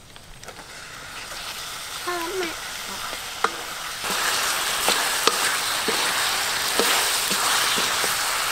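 Chopped duck sizzling in a hot wok over a wood fire. The frying hiss builds as the meat goes in and grows louder about four seconds in. The duck is stir-fried with a wooden spatula that scrapes and knocks against the pan.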